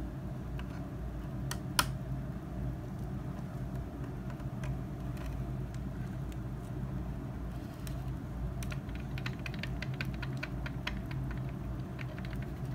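Light clicks and taps of plastic wiring connectors being handled and pushed home inside a hoverboard's shell, with one sharp click about two seconds in and a quick run of small clicks later on, over a steady low hum.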